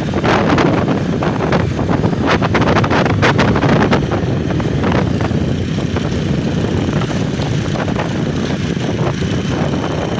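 A road vehicle running steadily, with a low rumble and wind buffeting the microphone.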